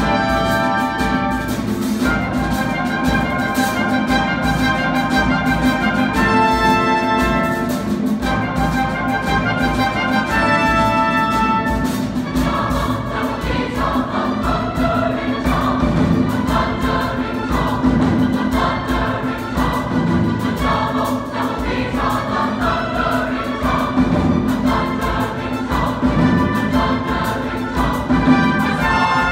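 Mixed choir with a small orchestra performing a choral work live. Held orchestral chords come in separate blocks for about the first twelve seconds, then the choir sings over the orchestra.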